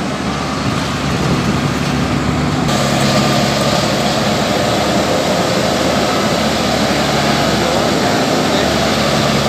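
Heavy farm-machine engine running steadily under load. About two and a half seconds in it abruptly gets fuller and a little louder.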